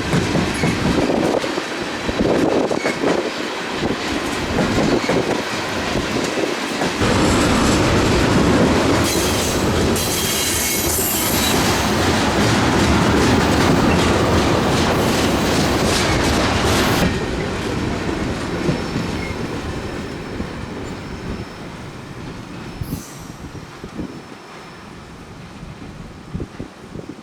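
Freight train of tank cars rolling past at low speed, wheels clattering over the rail joints, with high wheel squeal in the middle stretch. It stays loud until about two-thirds through, then fades as it moves away.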